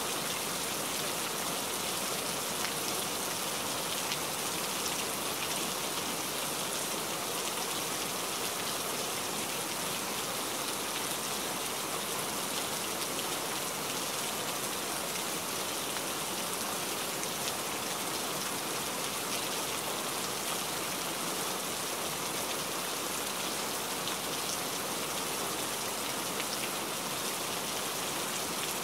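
Steady downpour of rain, an even hiss with faint scattered drop ticks.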